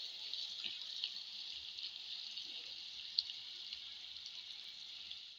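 Chopped vegetable pickle sizzling in hot oil in a pot as it is stirred with a spatula. A steady hiss runs with small crackles, and there is one sharper click about three seconds in.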